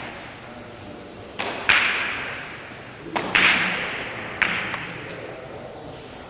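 Carom billiard balls clicking, several sharp knocks in pairs and singles, each of the louder ones followed by a fading ring of reverberation.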